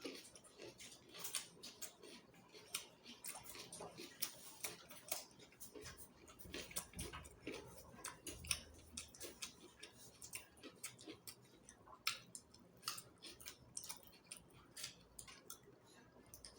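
A person eating chicken feet curry close to the microphone: a steady run of quick, sharp wet clicks and smacks from chewing and sucking at the feet.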